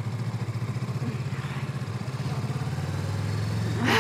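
Motorcycle engine running at a low, steady speed with an even, rapid pulse, getting slightly louder in the second half. A short rush of noise comes near the end.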